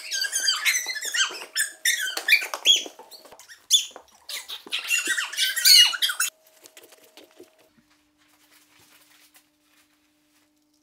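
Women squealing and shrieking in high-pitched bursts, cutting off suddenly about six seconds in.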